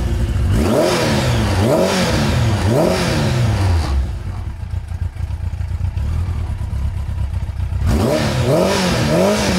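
Warm Yamaha Diversion motorcycle engine (air-cooled inline-four) revved through its freshly fitted chrome exhaust: three quick throttle blips, about four seconds of idle, then two more blips near the end.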